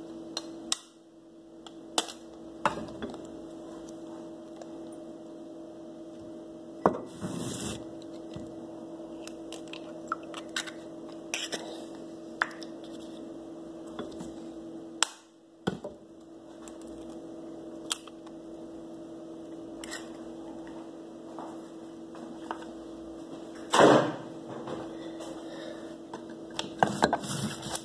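Scattered, irregular clicks and knocks of a kitchen knife and dishes being handled during food preparation, over a steady electrical hum; the loudest clatter comes near the end.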